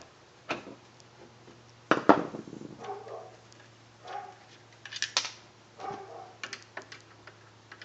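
Scattered clicks and knocks of a screwdriver and small parts being handled while a screw is taken out of a Daisy 880 air rifle, the sharpest knock about two seconds in.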